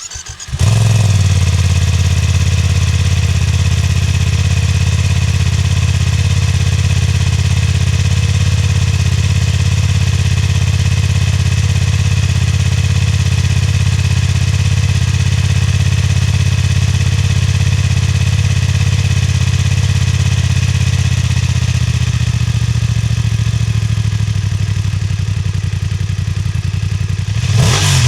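BMW F900R parallel-twin motorcycle engine cold-starting and catching at once, then idling steadily through its exhaust. Near the end the revs begin to rise with a throttle blip.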